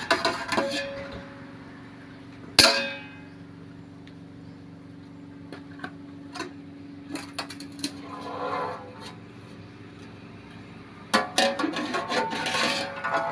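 Metal ladle and a large metal cooking pot clinking together. About two and a half seconds in comes one loud clang that rings on for several seconds. Scattered clinks and a scrape follow, then a burst of clattering near the end as the pot is tipped and handled.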